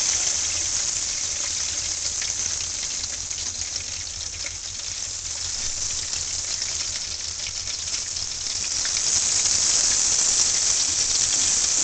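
Hot oil in a turkey-fryer pot sizzling and crackling steadily as a whole fried turkey is lifted out of it, growing louder about nine seconds in.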